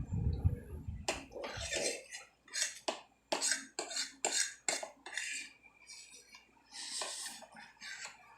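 Cutlery clinking and scraping against a dish of instant noodles while eating: a run of quick sharp clicks, about two or three a second, then a longer scrape near the end. Low muffled thumps come in the first second or two.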